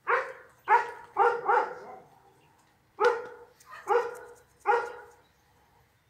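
A dog barking, seven sharp barks in two bursts: four in quick succession, a short pause, then three more.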